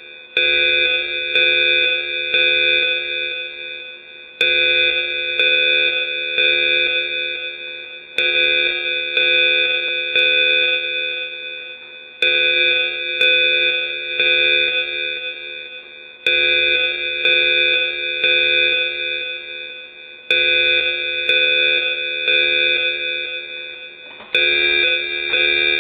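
Mandatory-evacuation alarm signal: a chord of several steady tones starts abruptly and fades away, repeating about every four seconds, seven times.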